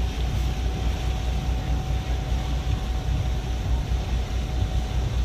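Tour boat's engine running steadily under way, a deep pulsing rumble with a faint steady hum above it, over the rush of the wake.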